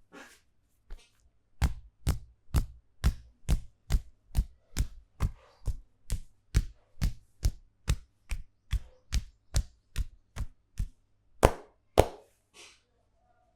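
Barber's hands striking in a rhythmic percussive massage: a steady run of slaps about two a second, then two louder slaps near the end.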